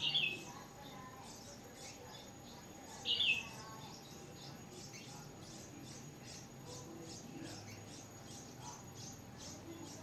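Red-whiskered bulbuls at the nest: two short, loud, falling chirps about three seconds apart, over a steady run of faint, high squeaks, two or three a second, from the nestlings begging to be fed.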